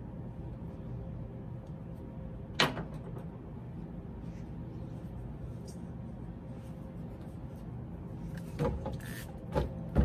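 A sharp knock about two and a half seconds in and two lighter knocks near the end, as clay tools are handled on a workbench, over a steady low hum.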